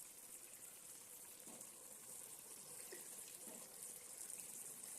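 Faint, steady hiss of steam from the covered pot of biryani being steamed, with a few soft, faint knocks.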